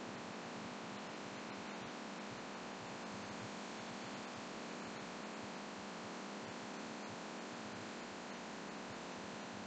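Laminar flow hood's blower running, a steady even rush of filtered air, with a few faint small clicks of handling.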